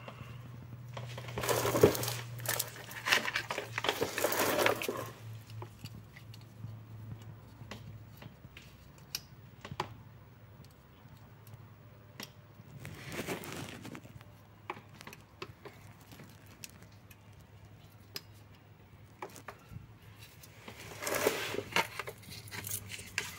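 Rustling and crinkling handling noise in three stretches, with scattered small clicks, from a gloved hand working close to the microphone among the automatic transmission's shift solenoid wiring. A low steady hum runs under the first third.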